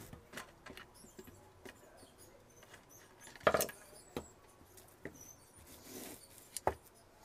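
Screwdriver working out screws from an electric iron's plastic body, then the body pulled off the metal soleplate: faint scraping and small clicks, with a sharper knock about three and a half seconds in and another near the end.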